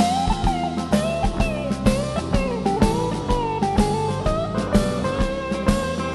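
Live country band playing the song's instrumental intro: a drum kit keeps a steady beat under a guitar melody whose notes bend and slide.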